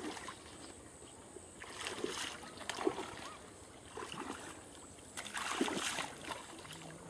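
Water splashing and sloshing in a fish pond as people in the water haul a seine net, in several irregular bursts; the loudest comes about five to six seconds in.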